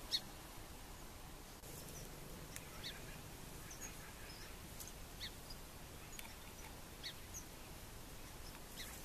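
Faint pond-side ambience: a soft steady hiss with scattered short, high bird chirps every second or so.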